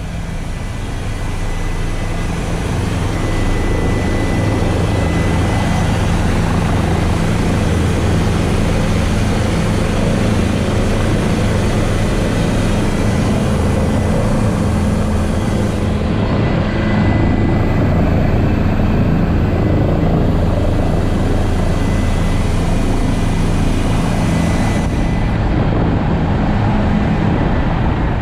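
Helicopter rotor and turbine engine running, heard from inside the cabin: a loud, steady low hum with a thin high whine above it, swelling over the first few seconds and then holding level.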